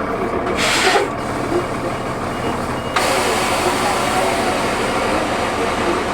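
Cummins ISL diesel engine of a 2004 New Flyer D40LF transit bus running steadily, heard from on board. A short hiss comes a little over half a second in, and the sound steps up suddenly about three seconds in and stays louder.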